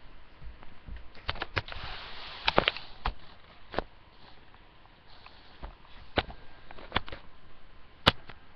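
Scattered sharp clicks and taps with a brief soft rustle about two seconds in: close handling noise.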